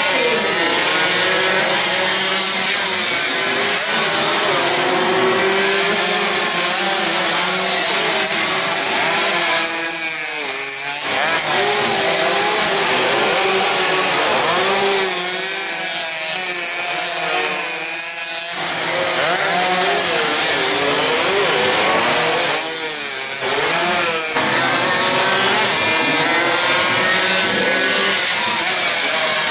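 Several racing motorcycle engines at high revs, overlapping, their pitches rising and falling as the bikes brake, accelerate and pass. The sound eases off briefly a few times as they move away, then builds again.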